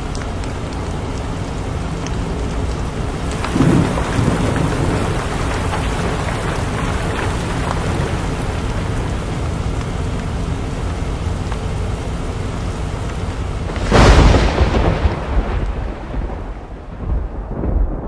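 Sleep-aid recording of heavy rain mixed with an electric fan: a steady hiss broken by thunder. A clap comes about three and a half seconds in, and a much louder one near the end rumbles away over a few seconds.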